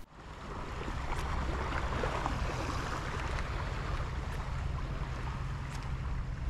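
Wind buffeting the microphone as a steady low rumble over the hiss of gentle water lapping at the shoreline. A few faint ticks come through, about a second in, near the middle and near the end.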